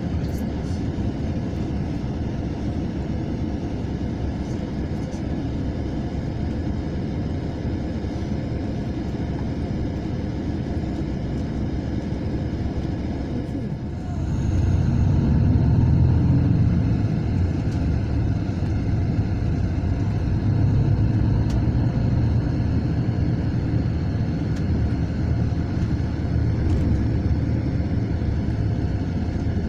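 Cabin noise inside a moving Mercedes-Benz O500 RSD coach: a steady diesel engine and road rumble, growing louder and deeper about halfway through.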